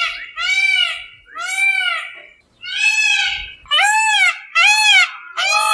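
Peacock calling: a loud series of about seven short, wailing calls, each rising and then falling in pitch, with a longer gap in the middle.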